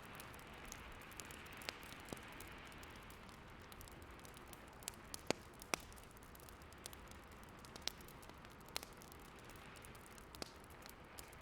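Wood fire crackling, with scattered sharp pops, the loudest two close together near the middle, over a soft steady rush of snowstorm wind.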